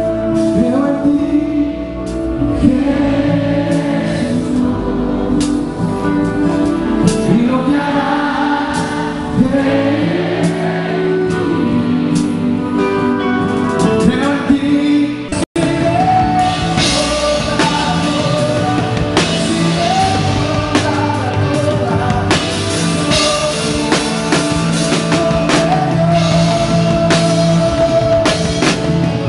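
Live Christian worship band playing a song with sung vocals over guitar and steady chords. The sound drops out for an instant about halfway through, then comes back fuller, with drum kit and cymbals hitting more densely.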